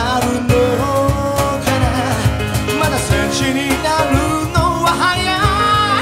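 Live band performance: a male lead vocal sung with strain over acoustic guitar, grand piano and drums keeping a steady beat.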